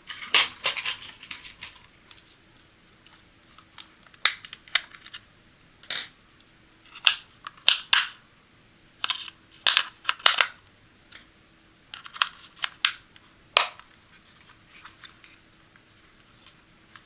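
Close-miked unboxing handling of a fingertip pulse oximeter and its packaging: irregular clusters of short crinkles, clicks and taps with brief pauses between them.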